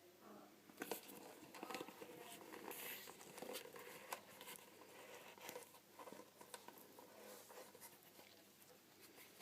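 Soft rustling and scattered light taps and clicks of football boots and their packaging being handled, busiest in the first few seconds.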